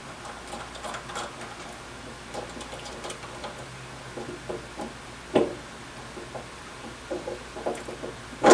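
Small metal clicks and taps as an aluminum depth-stop collar and its screw are handled and fitted by hand onto a drill press quill, with one sharper click about five and a half seconds in.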